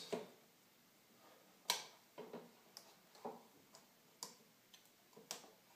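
A scattered series of small, faint clicks and taps as two cables are plugged into a 3.5-inch desktop hard drive and the drive is handled in its bay, the loudest click about a third of the way in.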